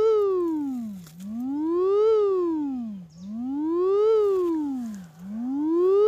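Sweep tone from a phone speaker-cleaner app: one tone with a buzzy edge that glides up and back down between low and middle pitch, one rise and fall about every two seconds, loudest at the top and dipping at the bottom. The sweep is played to clean dust and moisture out of the phone's speaker.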